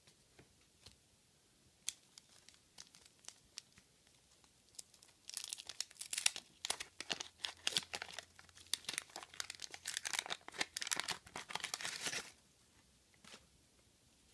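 Wax-paper trading-card pack being torn open and crinkled, a dense crackling that starts about five seconds in and lasts about seven seconds, after a few faint clicks.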